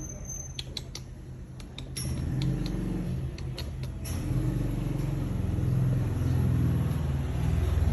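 Domestic cat making a low, continuous rumbling sound in its throat, swelling about two seconds in and again about four seconds in, with a few light clicks in the first seconds. The video's title calls it coughing.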